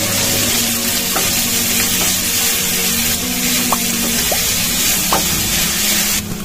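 Chopped onions with bay leaves and green chillies sizzling in hot oil in a nonstick pan, stirred with a spatula that scrapes the pan a few times. The sizzling cuts off just before the end.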